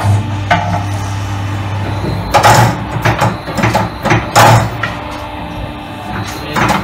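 Alloy wheel straightening machine at work. A steady low motor hum runs for about two seconds, then comes a string of short, loud, noisy bursts as the operator works the machine's lever.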